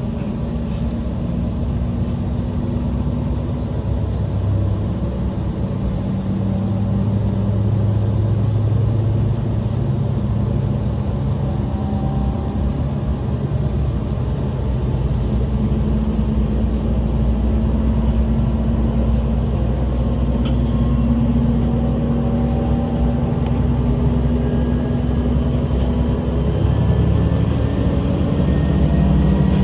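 Diesel railcar running, a steady low engine drone with a faint whine that rises slowly in pitch as it gathers speed.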